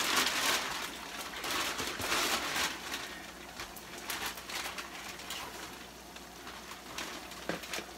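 Ground beef frying in a skillet, a steady sizzle, with louder noisy bursts in the first three seconds and a few small clicks after.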